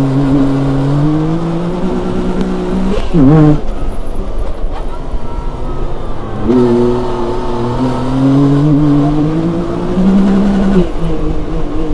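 Side-by-side UTV engine under power, its note climbing steadily, dropping sharply a little after three seconds, then climbing again from about six and a half seconds and falling away near the end.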